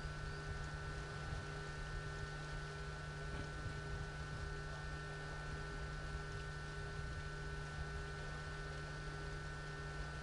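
Steady electrical hum with a thin high whine over faint hiss, unchanging throughout.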